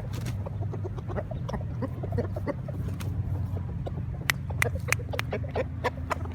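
Thai gamefowl roosters clucking in short low notes, with scattered sharp clicks (more of them from about four seconds in) over a steady low hum.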